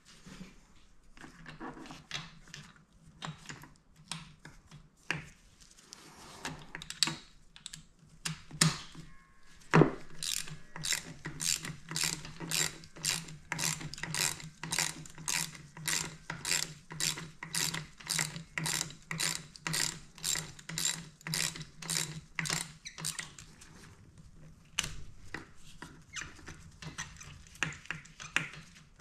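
Socket ratchet clicking while backing out a spark plug: scattered clicks at first, then an even run of about two clicks a second for some thirteen seconds, then a few more clicks near the end.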